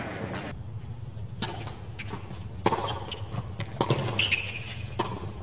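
Tennis ball striking a hard court: single sharp knocks, spaced roughly a second apart, over a low steady background hum.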